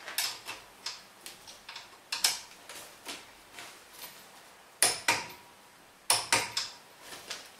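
Click-type torque wrench ratcheting on a scooter's cylinder head bolt: a run of separate sharp metallic clicks, a few of them louder, as the bolts are brought up to torque in sequence.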